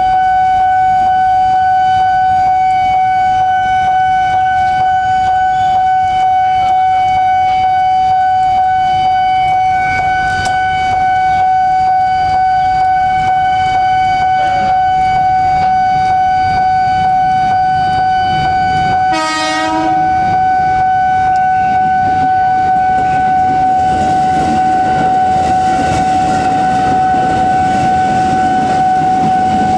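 Level-crossing warning signal sounding one steady, unbroken high tone over the hiss of heavy rain. A train's rumble grows louder in the last several seconds as it rolls slowly through.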